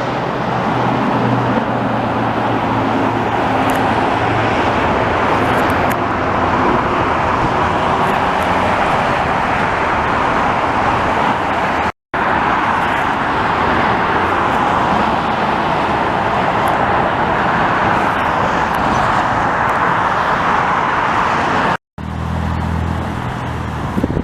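Steady roar of highway traffic passing below the overpass, with a low hum in the first several seconds. The sound cuts out for an instant twice.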